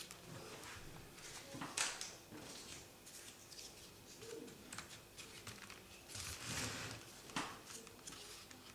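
Folded paper units of a 3D origami model rustling and crinkling as fingers work them into place, with a few sharper paper crackles, the loudest about two seconds in and again near the end.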